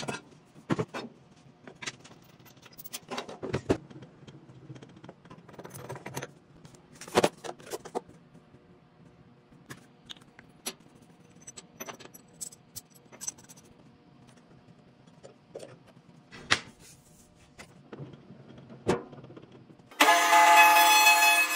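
Metal clinks and clanks of small parts and tools being handled while a new chuck is fitted to a spindle shaper. Near the end a loud, steady machine whine cuts in suddenly as the shaper runs.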